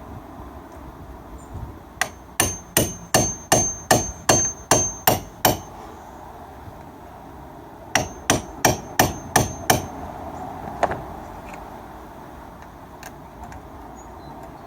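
A hammer tapping a socket to drive a car battery terminal clamp down onto its tapered post, which it was gripping but not fully seated on. There is a run of about ten quick taps at roughly three a second, each with a short metallic ring, then a pause, then about seven more taps and one last single tap.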